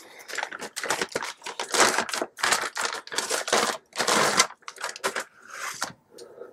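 Thin clear plastic bag crinkling and rustling in quick, irregular bursts as it is pulled off a part by hand, dying away about five seconds in.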